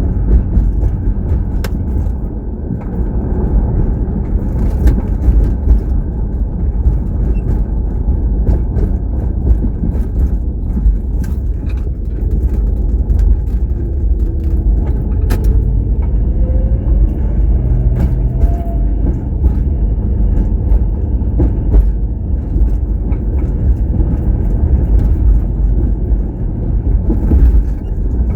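Steady low rumble of a car in motion, with scattered small clicks and rattles.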